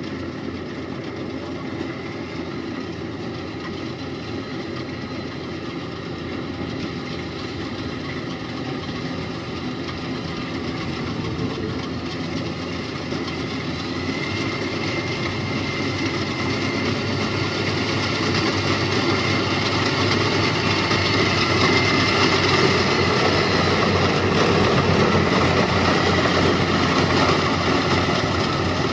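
Engine of a Yanmar rice combine harvester running steadily, growing louder from about halfway through.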